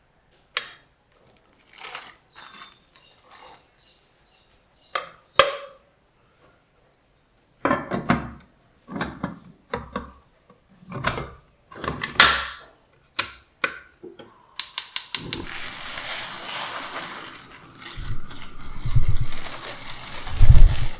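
Kitchen utensils and dishes being handled: scattered knocks and clatters. After about fifteen seconds a tap starts running water steadily, with a few low thuds near the end.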